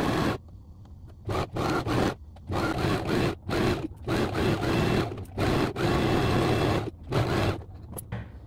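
Electric domestic sewing machine stitching in about ten short runs, each under a second, starting and stopping as the fabric is fed through. A single scissor snip near the end as a thread is trimmed.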